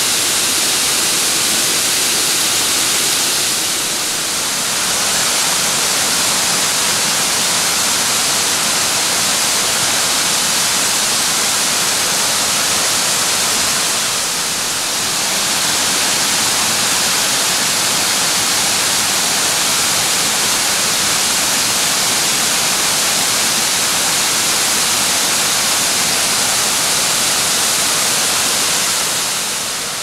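Mountain waterfall pouring over rock into a plunge pool: a loud, steady rush of falling water, dipping briefly twice and getting quieter near the end.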